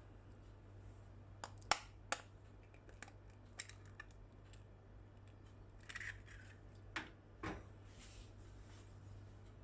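A few sharp taps and clicks, the loudest bunched about two seconds in, with softer scrapes later: eggs being cracked against a mixing bowl and added to mashed banana.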